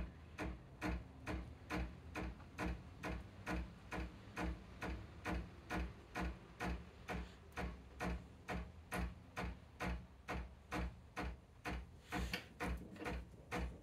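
Ascaso Steel Duo PID espresso machine's steam system knocking steadily with the steam on, a little over two knocks a second. The knocking, normal for this machine, fails to fade as pressure builds, which the owner puts down to the steam knob not being fully closed.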